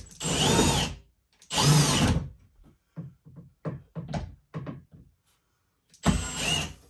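Power drill driving screws through a closet-rod bracket into the wall: two runs of the motor, rising and falling in pitch, in the first couple of seconds, then a string of short trigger bursts, then another run near the end. The installer doubts the screws on this side are biting into wood.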